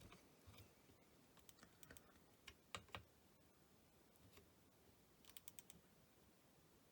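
Near silence with faint, scattered light clicks and taps of small parts and tools being handled at a bench. Two slightly stronger clicks come about three seconds in, and a quick run of four clicks a little past five seconds.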